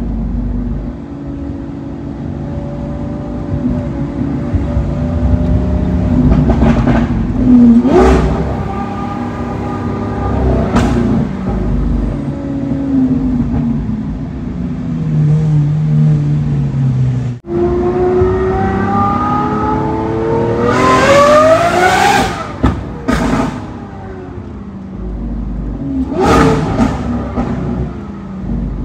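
Sports car engine revving and accelerating hard in several pulls, the pitch climbing with each, punctuated by sharp exhaust cracks.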